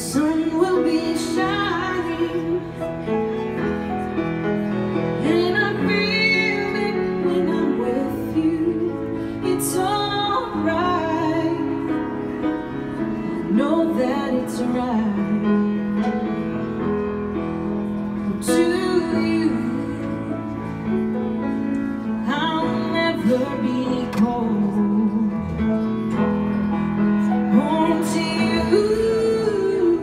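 A woman singing a slow ballad while accompanying herself on a grand piano, in a live performance.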